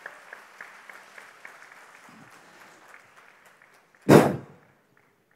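Audience applauding a recited couplet, the clapping fading away over about three seconds. About four seconds in comes one short, loud burst of noise, the loudest sound here.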